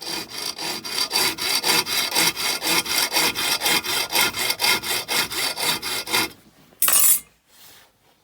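Hacksaw blade worked by hand across a steel bolt in quick, even back-and-forth strokes, a rasping scrape on each pass. The sawing stops a little after six seconds in, followed by one short, loud scrape.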